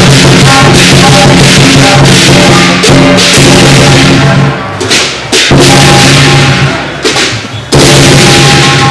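Lion dance percussion playing loud and fast: a big drum, gong and cymbals clashing continuously, with a low ringing tone struck afresh every two to three seconds.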